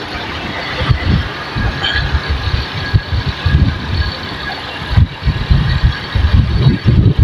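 Motorcycle being ridden along a road: steady engine and road noise, with uneven low rumbling gusts of wind buffeting the microphone.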